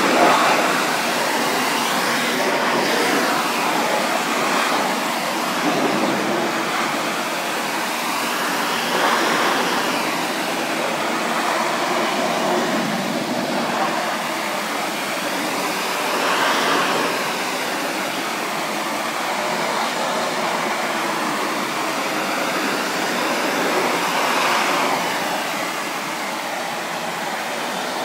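Pressure washer spraying a fan jet of water onto wooden deck boards: a loud, steady hiss that swells and eases about every seven or eight seconds.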